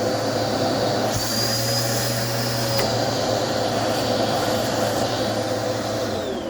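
Dirt Devil vacuum cleaner's motor running steadily with a high whine. Near the end it is switched off, and the whine falls in pitch as the motor spins down.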